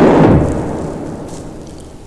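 A loud, rough monster roar, the made-up call of a horse-sized ape-like creature. It breaks off about half a second in and fades away over the next second and a half.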